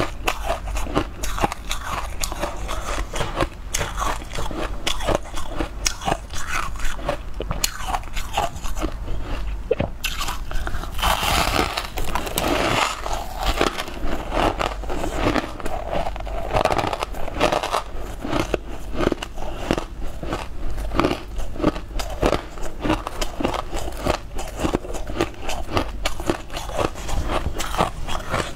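Close-miked biting and chewing of a crunchy, purple granule-coated food: a steady run of many sharp crunches, denser for a couple of seconds near the middle.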